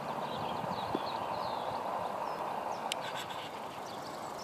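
Small birds chirping repeatedly over a steady background hum, with a couple of brief clicks about three seconds in.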